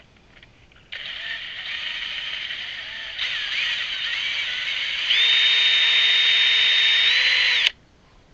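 Handheld power driver spinning a socket to run a nut off, its motor whining and speeding up in steps before stopping abruptly.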